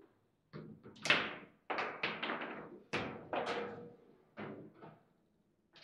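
Table football (foosball) play: an irregular run of about ten sharp knocks and clacks, each ringing briefly, as the plastic figures strike the ball and the ball and rods bang against the wooden table. The loudest knock comes about a second in.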